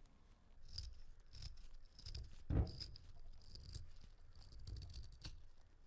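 Faint handling noises: gloved fingers and a small metal tool working a small threaded brass part, a run of soft rubbing strokes with one louder thump about two and a half seconds in.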